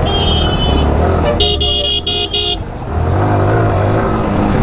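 Motorcycle engine running at low speed, with a vehicle horn beeping briefly at the start and then sounding several quick honks in a row about a second and a half in.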